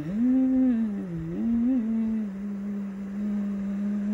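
A woman humming a tune, her pitch rising and falling for about two seconds and then held on one long steady note.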